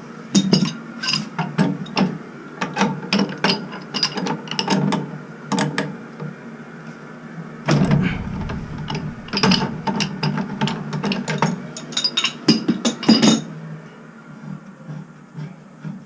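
Quick irregular runs of metal clicks and clanks from hand tools being worked, with a heavier knock about eight seconds in; the clicking stops about thirteen seconds in.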